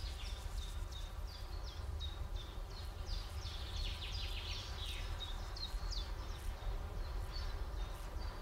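Countryside ambience: small birds chirping in short falling notes, two or three a second, over a steady low rumble.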